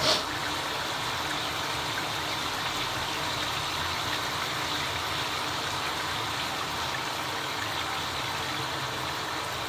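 Shower running steadily, water spraying in an even hiss. A brief, louder hiss comes at the very start.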